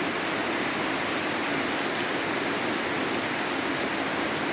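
Steady heavy rain falling and hitting the ground and garden plants.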